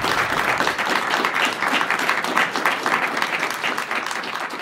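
Audience applauding at the close of a talk: dense, steady clapping that slowly grows quieter over the last couple of seconds.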